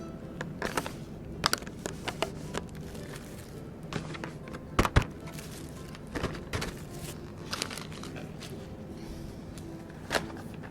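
Plastic food packaging crinkling and containers clicking and knocking as food is set out on a table, over soft background music; the loudest is a pair of knocks about five seconds in.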